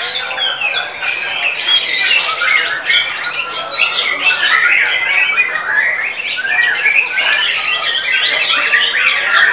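White-rumped shama singing: a fast, unbroken run of varied whistles, trills and chattering notes.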